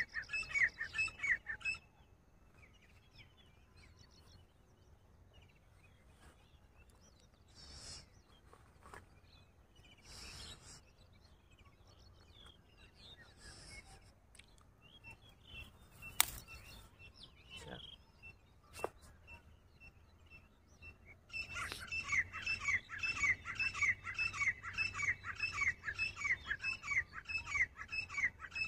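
Grey francolin (teetar) calling: a fast run of repeated rising notes, about three a second, heard briefly at the start. After a quieter stretch with a few faint scattered calls, the run starts again about 21 seconds in.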